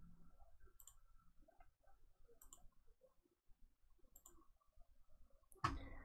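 Computer mouse clicking a few times, faint against near silence, with a louder single knock near the end.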